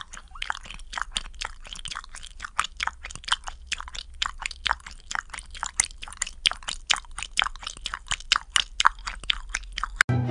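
Two hairless cats licking a longhaired cat's wet fur: quick wet licking smacks, about five a second, which cut off suddenly near the end.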